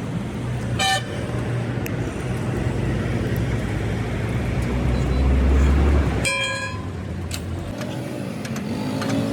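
Roadside traffic: a vehicle engine hums steadily and swells to its loudest around five to six seconds in before falling away. A horn gives a short toot about a second in and a longer toot at about six and a half seconds.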